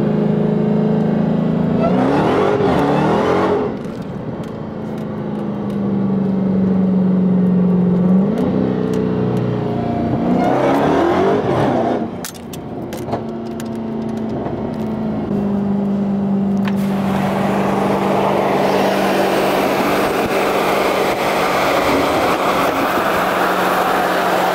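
Car engine running hard at speed: a steady drone that twice rises sharply in pitch, each rise followed by a brief dip in loudness. From about two-thirds of the way through, a loud rush of wind and road noise joins it.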